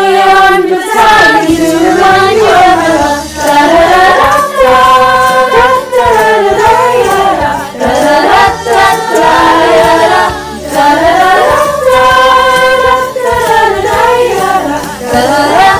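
Youth choir of mostly girls' voices singing together, layered from home recordings, carrying a wordless 'da da da' refrain as a continuous melodic line.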